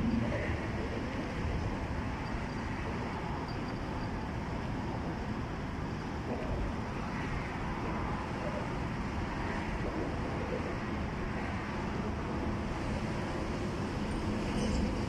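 Steady road-traffic noise from highway overpasses: an even rumble with no single event standing out.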